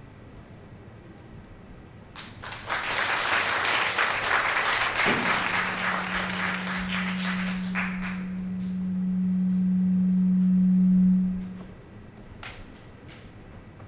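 Audience applauding for several seconds. Partway through, a single steady low tone comes in, swells louder as the clapping dies away, and fades out near the end.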